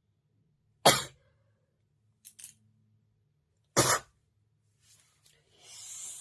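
A woman sneezing twice, about three seconds apart, each sneeze short and explosive, with two faint sniffs between them. A breathy hiss, a sniff or exhale through the nose, comes near the end.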